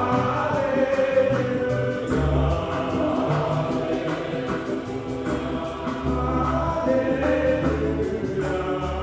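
Church choir singing the Gospel acclamation with instrumental accompaniment, over low bass notes and a steady beat.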